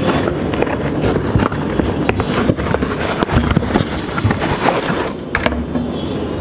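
A cardboard product box being handled and opened on a wooden table: scraping and rubbing with many small knocks and clicks.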